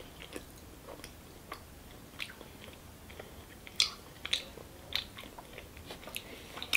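A child chewing soft, doughy green tea mochi, with short mouth clicks and smacks every second or so.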